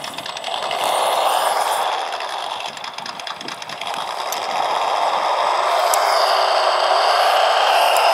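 The PRC QX-4 mini rock crawler's simulated truck-engine sound, following the throttle. It drops back toward idle over the first few seconds, then revs up again about halfway through and holds a steady higher note.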